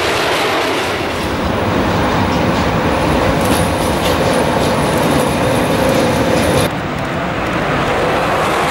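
Train running past on the rails with a steady rolling rumble; a faint high whine joins about a third of the way in and stops with a sudden drop in level about two-thirds through.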